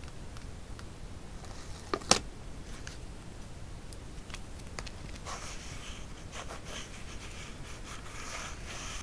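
Close-up paper-crafting sounds: a sharp click about two seconds in, then from about halfway a soft scratchy rustle of a small paper sticker being set and pressed onto a kraft-paper journal page with metal tweezers.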